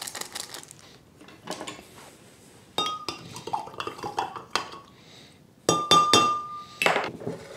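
A glass vase of water being clinked and tapped, as if something is stirring flower preservative into it. The glass rings briefly after some strikes. The loudest clinks, with the longest ring, come about six seconds in.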